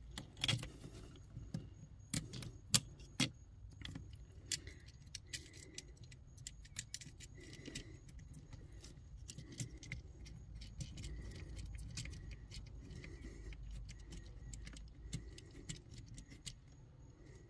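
Metal ring terminals on battery cables clinking and plastic wire loom rattling as the cables are fitted onto a circuit breaker's terminal by hand. Scattered light clicks, with a few sharper ones in the first few seconds.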